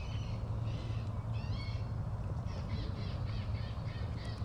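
Recorded bird calls played over a bird-scaring loudspeaker to keep birds off the berry crop: a run of short, harsh squawks one after another. A steady low hum runs underneath.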